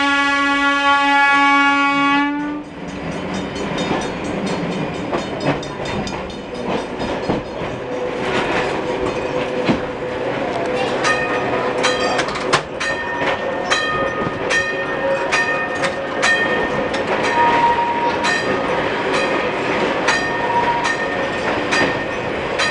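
Vintage electric streetcar (New Orleans Public Service car 832) running on track, heard from inside the car: a steady rumble with wheels clicking over rail joints, and a thin whining tone from the running gear later on. A long steady horn-like tone cuts off sharply about two and a half seconds in.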